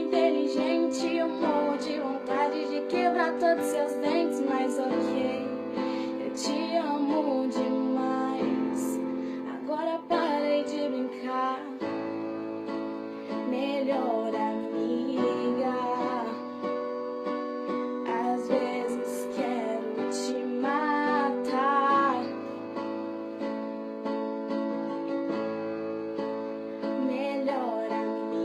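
Pop song with a female singing voice over piano and guitar accompaniment.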